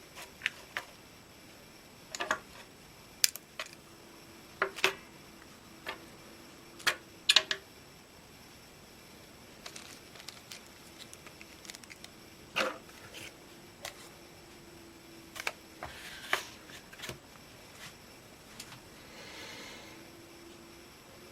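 Scattered sharp clicks and taps of small plastic and electronic parts being handled, irregular and a second or more apart, with a faint steady tone underneath at times.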